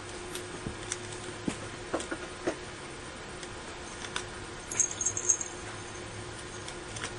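Kitten gnawing a raw cabbage head: scattered crisp crunches and clicks of its teeth on the leaves, with a quick flurry of them about five seconds in.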